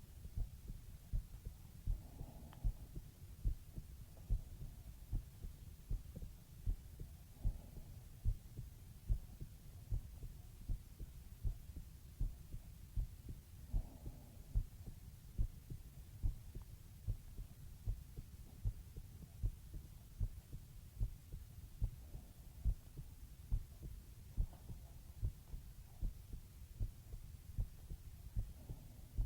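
Human heartbeat heard close up: soft low thumps, slow and steady at about one beat a second.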